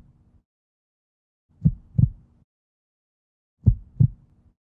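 Heartbeat sound effect: two deep 'lub-dub' double thumps, about two seconds apart.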